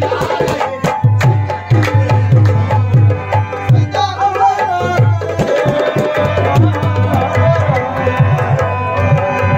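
Qawwali music: tabla playing a steady rhythm under sustained held notes, most likely harmonium.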